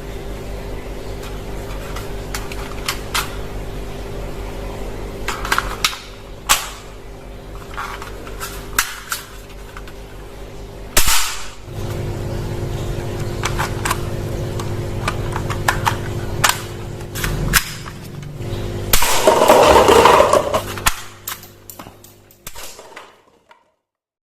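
Toy guns clicking and snapping as they are handled and fired, scattered single clicks over a steady low hum. The hum grows stronger for a few seconds mid-way, and a louder rushing burst comes near the end before the sound dies away.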